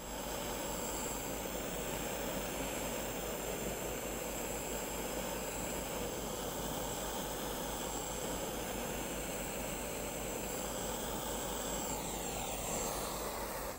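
A steady rushing, jet-like noise, with a falling whoosh near the end.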